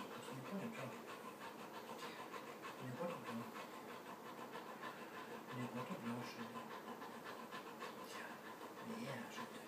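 English Springer Spaniel panting fast and evenly during a severe epileptic seizure.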